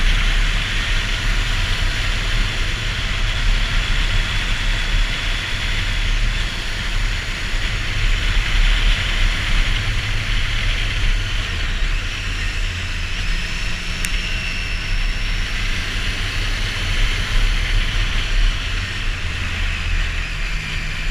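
Motorcycle riding at road speed: a Triumph Street Triple R's three-cylinder engine running under heavy wind rush. The engine note shifts about halfway through and again near the end.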